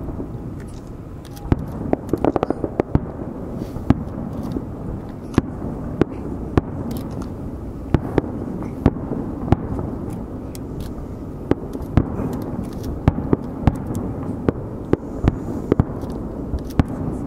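Aerial firework shells bursting: an irregular run of sharp bangs, bunched closely about two seconds in, then coming one or two a second, over a steady low background rumble.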